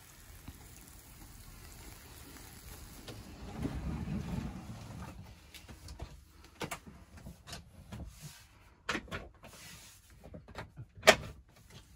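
Campervan pull-out bed and wooden cabinet panel being pushed and slid into place: a low sliding rumble about four seconds in, then a run of clicks and knocks as the panel is fitted, the sharpest knock near the end.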